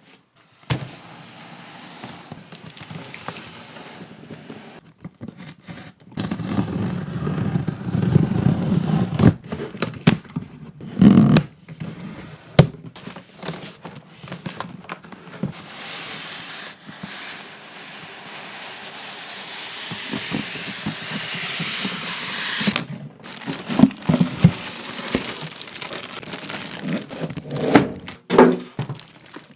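Packaging being handled: crinkling, tearing and rustling, with knocks and thunks, in short edited snippets.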